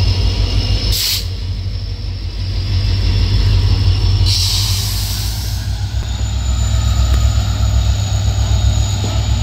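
Two EMD WDP4B diesel locomotives, 16-cylinder two-stroke EMD 710 engines, running as they pull a passenger train past, with a deep steady drone and a faint high whine. Two bursts of air hiss cut in: a short one about a second in and a longer one, over a second, at about four seconds.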